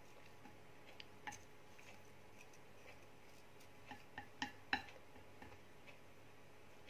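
Faint, sharp clicks of wooden chopsticks against a ceramic bowl while noodles are pushed into place: two light taps about a second in and a quick cluster of louder ones a little past the middle, over quiet room tone.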